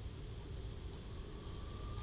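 Low, steady rumble of road traffic, with a faint engine whine coming in about a second in as a motorcycle approaches on the road.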